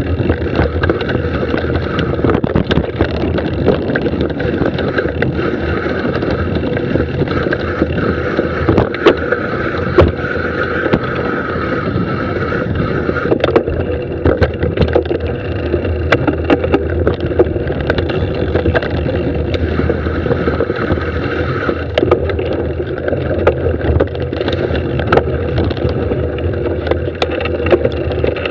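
Mountain bike ridden fast down a dirt singletrack, heard from a camera mounted on the bike or rider: a steady rush of tyre and wind noise with frequent sharp rattles and knocks as the bike goes over roots and rocks.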